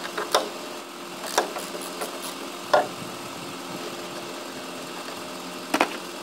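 Volkswagen Polo engine idling with a steady hum, overlaid by several sharp clicks and knocks of parts being handled in the engine bay, the loudest a little under halfway through.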